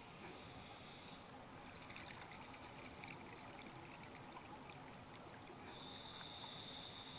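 Faint underwater bubbling and crackling of a scuba diver's exhaled air, from about a second and a half in until nearly six seconds in. A steady high-pitched whine is heard before and after it.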